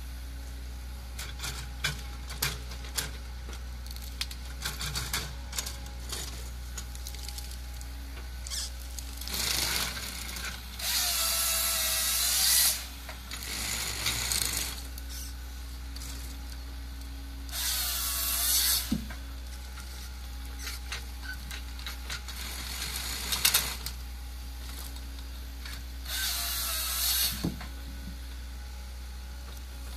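High-performance forestry machine working: a steady low engine hum with scattered clicks and knocks, and three bursts of high whining, each one to two seconds long, whose pitch bends down and back up.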